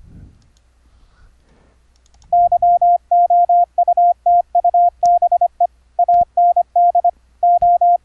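Morse code from a recorded CW file: a single steady mid-pitched tone keyed rapidly on and off in dots and dashes, starting about two seconds in.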